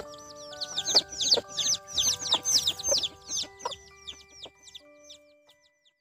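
Chicks peeping rapidly and repeatedly, each peep falling in pitch, with a hen clucking a few times, over background music of held notes. Everything fades out near the end.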